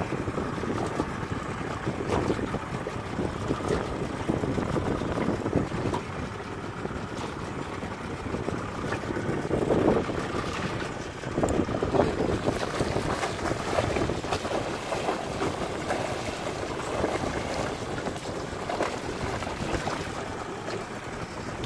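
Wind buffeting the microphone in uneven gusts, over water sloshing against a small boat's hull.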